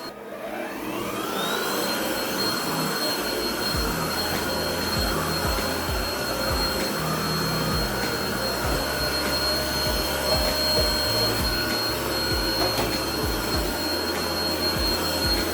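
Vacuum cleaner switched on, its motor winding up to a high whine in the first second or so and then running steadily with a rushing of air.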